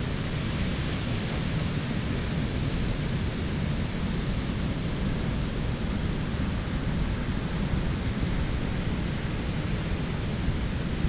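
Ocean surf washing in steadily, mixed with wind rumbling on the microphone.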